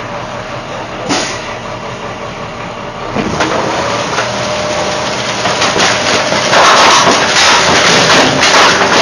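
Rear-loading garbage truck running, its engine and hydraulics getting louder about three seconds in as the packer cycle starts, with a steady whine. From about six seconds in, loud scraping and crackling as the packer blade sweeps the plastic toy and trash bags across the hopper.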